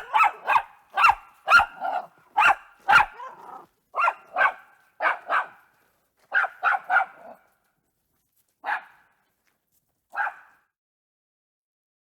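Jack Russell Terrier barking: a quick run of barks, about two a second, for some seven seconds, then two single barks about a second and a half apart.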